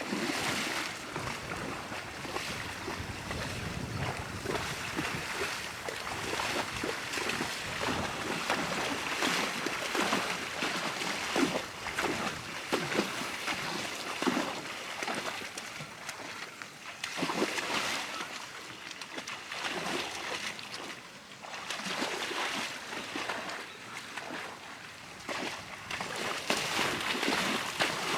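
New Forest ponies wading in shallow water, their legs splashing and sloshing it in irregular bursts.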